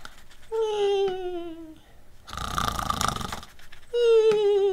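A person imitating a cartoon snore: a rasping in-breath between two high, falling, whistle-like tones on the out-breaths.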